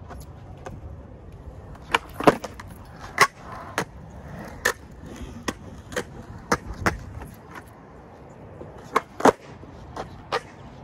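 Skateboard wheels rolling over concrete with a rumble, broken by a string of sharp clacks of the board's tail and deck striking the ground as tricks are popped and landed; the loudest clacks come about two seconds in and about nine seconds in.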